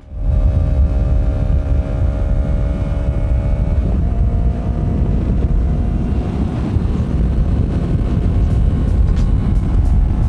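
Heavy wind buffeting on a helmet-mounted microphone at highway speed, a loud low rumble that overloads and clips the mic, over the steady drone of a Yamaha YZF-R3's parallel-twin engine. The engine's pitch shifts slightly about four seconds in.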